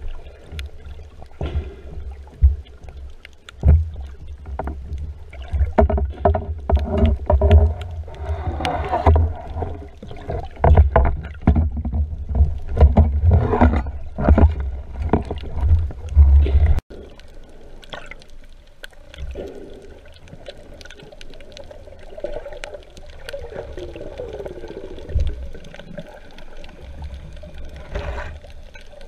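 Water sloshing and rumbling around an underwater camera held at the surface, with many clicks and knocks as a speared fish is handled on the spear shaft. About two-thirds of the way through it cuts suddenly to quieter, steadier underwater sound as the diver swims along the bottom.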